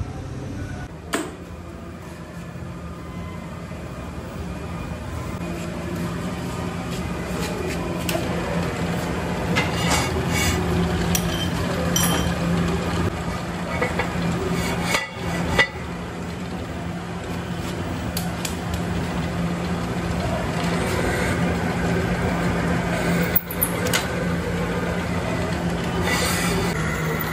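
Pillar drill press running with a steady motor hum that grows louder as its bit bores bolt holes through the flange of a cast brake drum, with scattered short metallic clinks.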